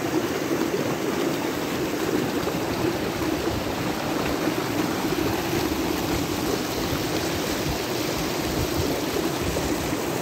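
Shallow rocky stream rushing and splashing over and between boulders, a steady, unbroken sound.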